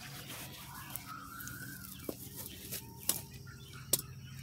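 A bird calls faintly: a wavering note about a second in and a shorter, lower note around three seconds in. Three light, sharp clicks fall among the calls, over a steady low hum.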